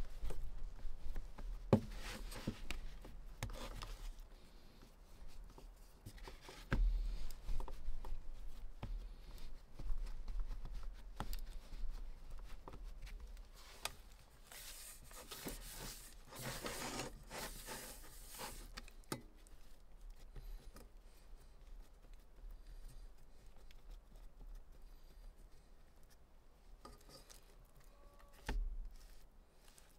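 Hands working soft dough and rubbing the inside of a metal springform cake pan: soft rubbing and scraping with scattered light taps against the metal, and a longer stretch of steady rubbing about halfway through.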